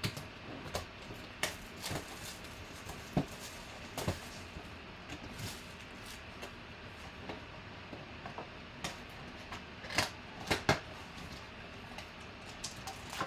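A cardboard trading-card box being handled and opened, with scattered taps, scrapes and rustles of the cardboard and the card packs inside, and two sharper clicks about ten seconds in.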